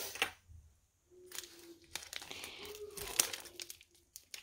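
Plastic bubble-wrap pouch crinkling and rustling as it is handled and cut open with scissors, with many small snips and crackles.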